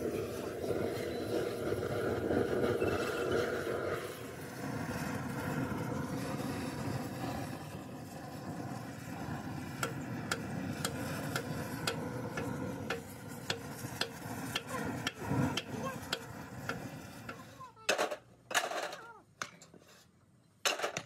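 Metal workshop noise: machinery running with a dense clatter, loudest in the first few seconds, sharp metal clinks scattered through the middle, and a few loud knocks near the end.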